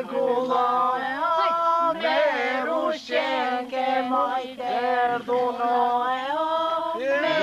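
A group of voices singing a traditional Albanian wedding folk song, with long held notes that bend in pitch.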